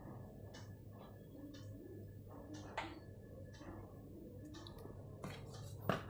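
Faint, scattered clicks and taps of small plastic containers being handled, as a plastic cap is tapped to shake out activator powder, over a low steady hum.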